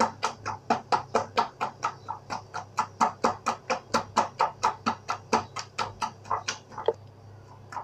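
A hand beating thick gram-flour batter in a glass bowl: quick, even wet slaps, about five a second, stopping about a second before the end. This is the long beating that makes dhokla batter smooth and changes its colour.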